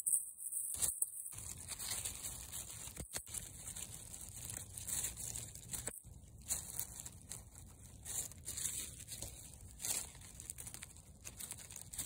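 Fingers scraping and digging through loose soil and dry leaf litter, giving irregular rustling and crinkling.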